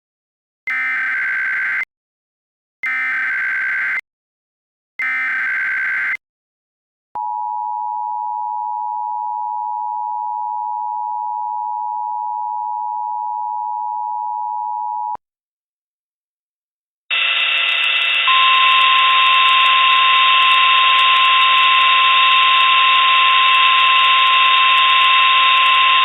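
Emergency Alert System tones: three short warbling data bursts (the SAME header), then the two-tone attention signal held steady for about eight seconds. After a short pause, a loud harsh buzzing alarm noise with a steady high tone over it starts and runs on.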